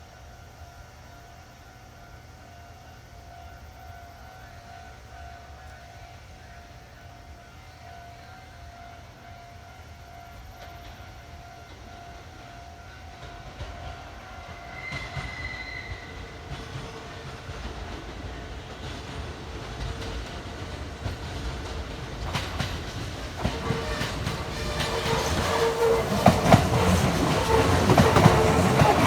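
Level-crossing warning bell ringing over and over, with a brief high train horn note about halfway through. A Kintetsu train then approaches and grows loud, its wheels clattering over the rails as it passes in the last few seconds.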